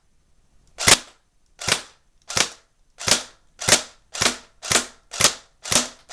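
Crosman Pulse R76 electric airsoft rifle firing single shots on semi-automatic: about nine separate shots, each a sharp snap with a short fading tail, spaced roughly half to three-quarters of a second apart and coming a little faster toward the end.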